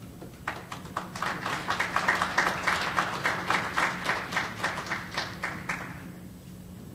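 Audience applauding: claps begin about half a second in, build to a full round, then die away about six seconds in, over a steady low hum.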